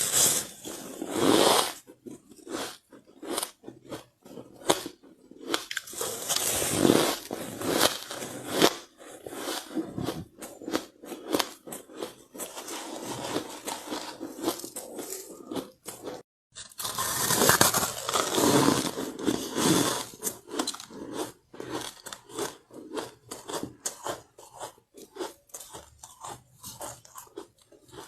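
Soft powdery ice being bitten and chewed close up: dense, irregular crunching and crackling in spells, with a brief pause a little past halfway.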